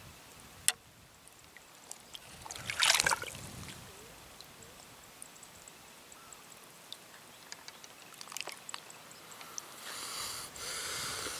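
Water splashing briefly around three seconds in, with a sharp click just before it, then quiet small ticks and a soft hiss near the end.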